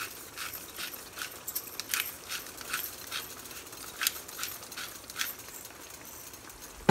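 Berbere-and-tomato sauce sizzling in a nonstick frying pan, with irregular small pops and crackles.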